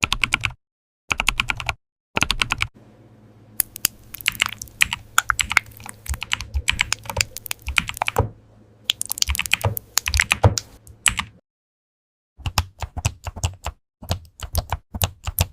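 Typing on a computer keyboard: rapid runs of key clicks in bursts, broken by short silent pauses.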